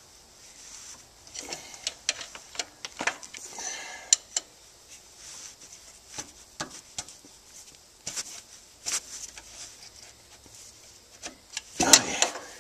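Scattered light metallic clicks and scrapes of a steel tool and a main bearing shell being worked into place around the crankshaft journal in the engine block, with a louder clatter of knocks near the end.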